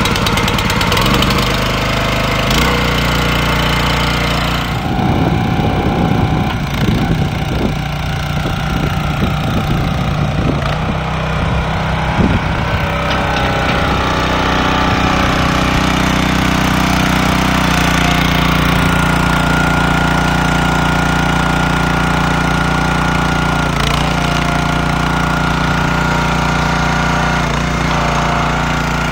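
Small single-cylinder petrol engine (6.5 HP) of a 30-ton log splitter running steadily after an electric start, driving the hydraulic pump. Its note shifts a little past halfway through.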